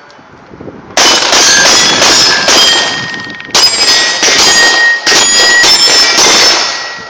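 Glock 17 9mm pistol fired in two quick strings, about five shots, then after a short pause about eight more, with steel plate targets ringing between and after the shots.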